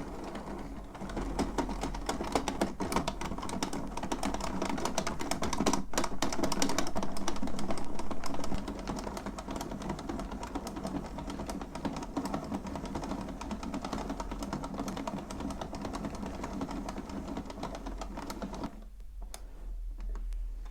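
Toy knitting machine working through rows of yarn: a steady run of rapid plastic clicking and rattling. It is louder for a few seconds early in the run and thins out near the end.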